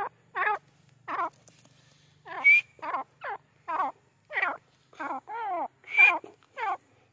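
Grey francolin calling: a quick run of short, harsh notes, a little under two a second, each sliding down in pitch. Louder notes with a shrill whistle on top come about two and a half and six seconds in.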